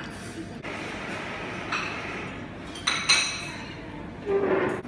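Crockery clinking, with two sharp ringing clinks about three seconds in, over a murmur of voices.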